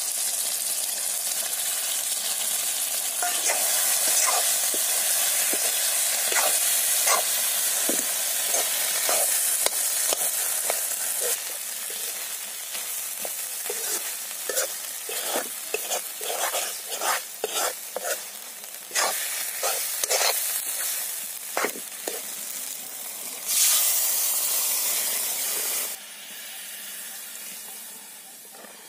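Frying sizzle in an aluminium kadai as sliced tomatoes go in among the fish and capsicum, with a metal spoon scraping and clinking against the pan while stirring. About 23 seconds in, a loud hiss as water is added, which then dies down to a quieter simmer.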